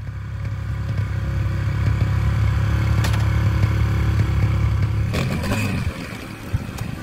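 Small single-cylinder four-stroke dirt bike engines: one idling steadily, then a clatter about five seconds in as the Yamaha TTR 125 is kick-started, followed by uneven revving.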